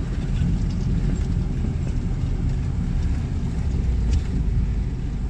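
Off-road 4x4 pickup crawling slowly over a rocky trail, its engine making a steady low rumble. There is a single knock about four seconds in.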